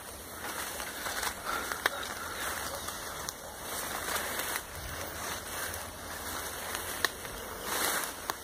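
Footsteps and rustling through dense undergrowth and leaf litter, with a few sharp snaps of twigs.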